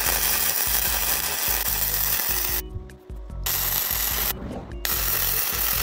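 Hitbox HBM200 MIG welder's arc crackling and sputtering as beads are run on a rusty steel plate. It comes in three runs, breaking off briefly about two and a half seconds in and again about four and a half seconds in.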